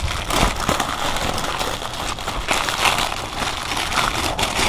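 Thin plastic bag crinkling and rustling in a steady stream of small crackles as hands pull a car amplifier out of it.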